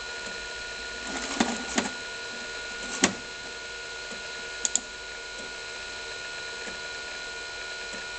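Amiga A590 hard drive running with a steady hum and a few fixed whining tones, broken by scattered sharp clicks, the loudest about three seconds in and a quick pair of clicks near the middle.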